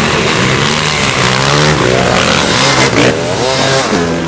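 Motocross motorcycle engines revving hard, their pitch repeatedly rising and falling, beginning to drop away at the very end.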